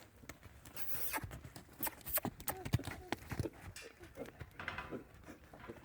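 Horse moving about the pen: a series of irregular knocks and thuds, with faint voices in the background.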